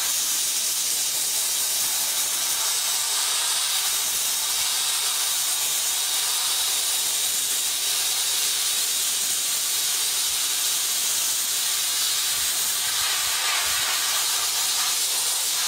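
Soda blaster's hand-held nozzle firing compressed air and baking-soda media against a wooden board, a steady, unbroken hiss.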